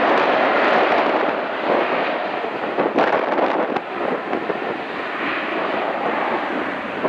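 Jet engines of an Airbus A321 rolling along the runway: a steady rush of jet noise, loudest in the first couple of seconds and easing slightly after that.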